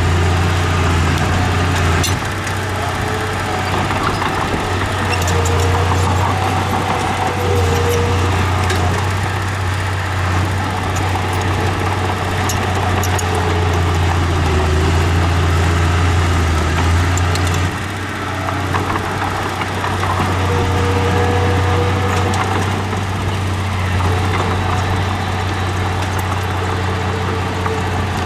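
Heavy diesel engine of earthmoving equipment running steadily with a deep drone, easing off briefly a couple of times, with a few faint metallic clicks.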